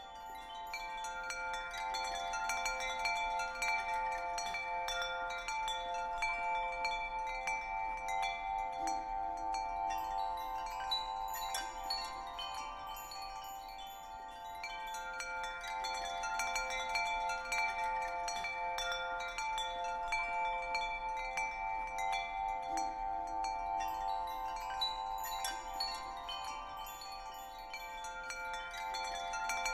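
Wind chimes ringing over a steady held drone, a soothing ambient background track. The loudness swells and eases about every fourteen seconds.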